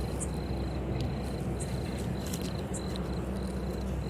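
A cricket chirping, one high trill repeating about every half second, over a steady low rumble.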